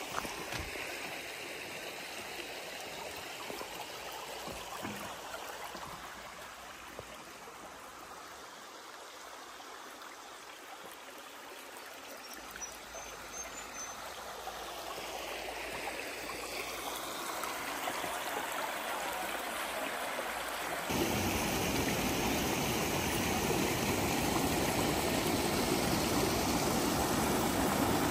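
Shallow creek water running over rocks and a small rocky cascade, a steady rush of flowing water. It grows louder in the last third, with a sudden step up about two-thirds of the way in.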